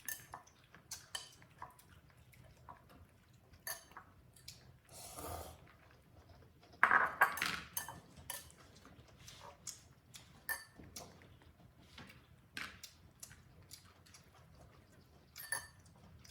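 A plate clattering in scattered clinks and knocks, with a loud clatter about seven seconds in.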